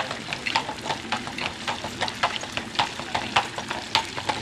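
Hooves of a pair of harnessed carriage horses clip-clopping on the road, an uneven run of sharp clicks several a second.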